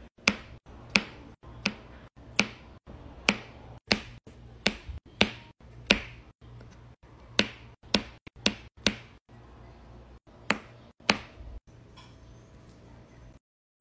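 Square resin diamond-painting drills pressed one by one onto the sticky canvas with a drill pen, each one a sharp click, irregular at about two a second. The clicks grow fainter late on and stop suddenly just before the end.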